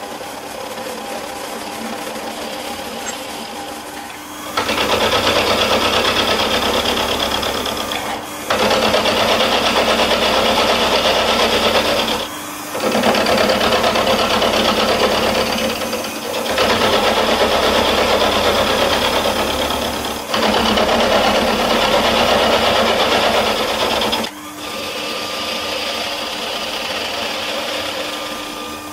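Milling machine facing the bottom face of a cast water-jacket plate held in a vise. The cutter's loud cutting noise comes in stretches of about four seconds, broken by brief dips, with the machine running more quietly for the first few seconds and the last few seconds.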